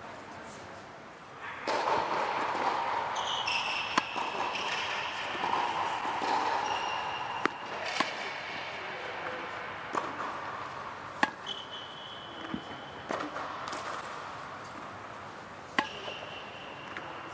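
Tennis balls struck by a racket and bouncing on a hard indoor court: a string of sharp pops a second or more apart during a backhand drill, with a few short high squeaks in between.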